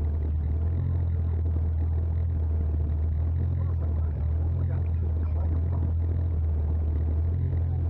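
Steady low engine drone, as of an engine idling, holding an even pitch with no revving.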